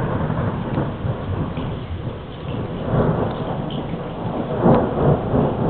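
Continuous rolling thunder rumbling on without a break, swelling louder about three seconds in and again near the end.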